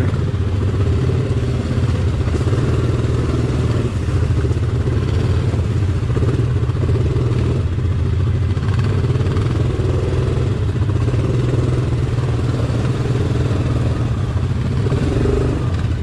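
ATV engine running steadily as the quad is ridden along a rough, muddy trail.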